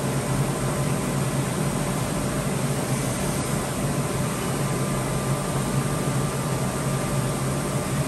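Studer S31 cylindrical grinder running with coolant flowing: a steady hum with a faint thin whine, muffled by the closed enclosure doors.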